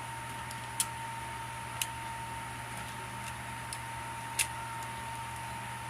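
Three light plastic clicks from a Transformers action figure being handled, spaced a second or more apart, over a steady background hum with a faint steady tone.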